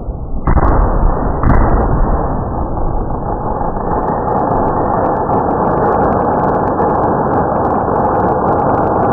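Fireworks going off in a continuous barrage, the bursts merging into a steady roar. Fresh loud bursts come about half a second and a second and a half in, and a thick crackling runs through the later part.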